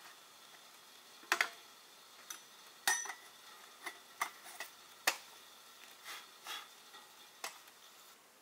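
Metal and glass clinks at the top of a samovar as its lid and fittings are handled and a glass teapot is set on top: about ten sharp clinks, each ringing briefly.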